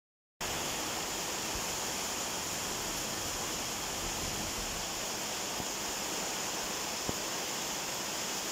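Heavy rain pouring steadily onto dense foliage and trees: an even, unbroken hiss, with one brief click near the end.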